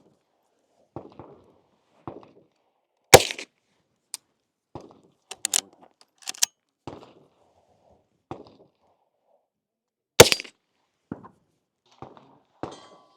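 .22 LR gunshots: single sharp cracks at irregular intervals, the two loudest about three seconds and ten seconds in, with fainter cracks between them.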